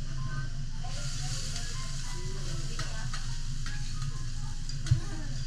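Kobe beef sizzling on a steel teppanyaki griddle, with light clicks of the chef's knife and spatula on the steel and one sharp knock near the end, over a steady low hum.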